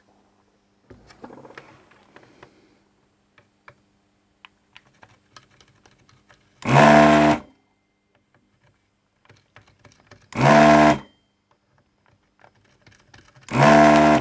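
Handheld desoldering gun's vacuum pump running in three short bursts of about a second each, a few seconds apart, sucking molten solder off the pins of a shorted transistor to free it from the board. Faint clicks of handling between the bursts.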